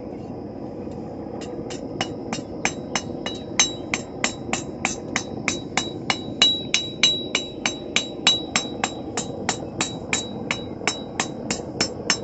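Hand hammer striking a thin quarter-inch steel rod on an anvil during forging, in an even rhythm of about three blows a second that starts about a second and a half in. The anvil rings between blows, over a steady background rush.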